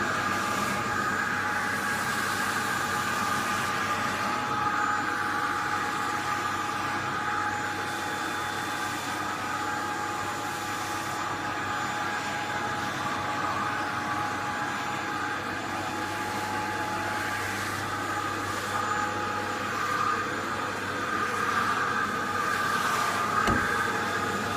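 Vacuum cleaner running steadily with a constant whine, used as a brush to groom a cat's fur.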